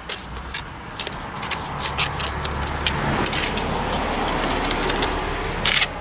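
Trowel clinks and scrapes against brick and fresh mortar as a brick is set into a patch in a block foundation, with a cluster of sharper knocks near the end. Under them, a steady low rumble builds through the middle and fades near the end.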